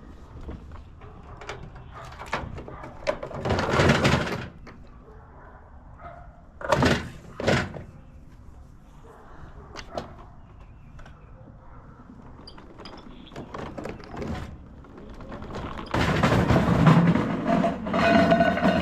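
An object being dragged over the ground: several loud bouts of scraping and knocking, the longest near the end.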